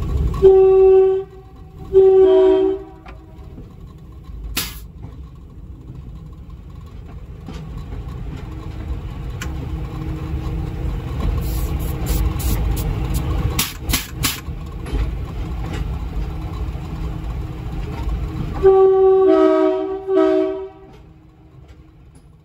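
Budd RDC rail diesel car sounding its multi-tone air horn in two short blasts, then rumbling past close by, with a few sharp clicks midway. It sounds the horn again in a quick run of blasts near the end.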